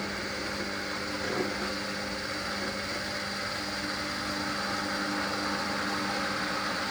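Hoover washer dryer's drum motor running steadily as the final spin gets under way, a continuous hum with a second, higher tone joining about halfway and the sound growing slightly louder toward the end.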